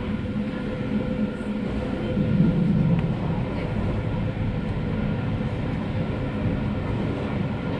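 Passenger train running over the tracks, heard from inside the carriage: a steady rumble with a faint steady hum above it.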